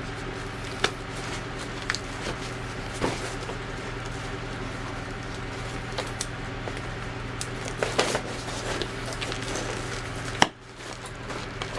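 Scattered clicks and knocks of objects being handled, over a steady low hum, with a sharp knock near the end.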